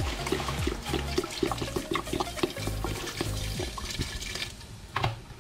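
Water poured from a plastic bottle into a metal cooking pot, splashing onto chicken pieces in a steady stream that stops about four and a half seconds in, followed by a short knock.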